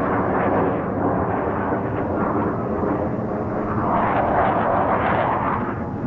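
Military fighter jets flying overhead: a loud, continuous jet roar that swells to its loudest about four to five seconds in.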